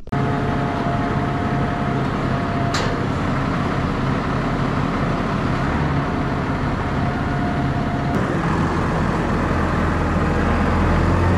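Valtra tractor's diesel engine running as the tractor drives across the yard with a mounted seed drill and power harrow. It grows a little louder near the end as the tractor comes close.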